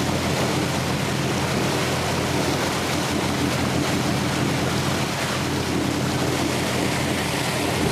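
Fishing boat under way: its motor running steadily, with wind on the microphone and the rush of lake water and waves.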